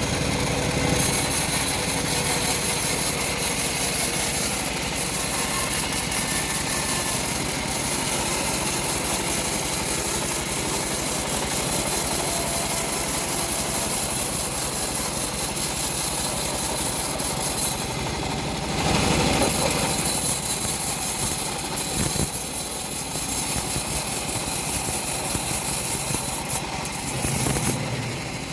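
Homemade engine-driven bandsaw mill running steadily, its blade sawing through a teak log.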